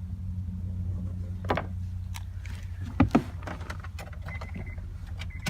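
Electric fuel pump of a 2002 Acura RSX Type S humming steadily while it pushes fuel out of a disconnected fuel hose; the higher part of the hum drops away about two seconds in. A couple of sharp knocks come about one and a half and three seconds in.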